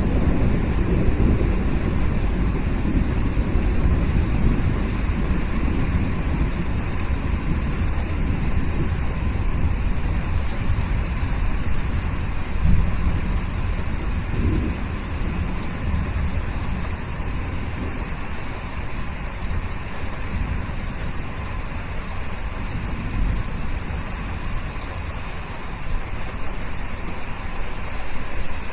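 Steady rain with a low rolling rumble of thunder, heaviest in the first half and slowly easing off.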